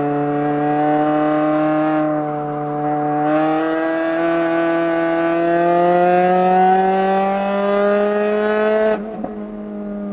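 MINI Cooper's four-cylinder engine heard from inside the stripped cabin, pulling hard on track with its pitch climbing slowly. About three seconds in the note turns brighter and fuller. Near the end it drops off suddenly to a quieter, lower run.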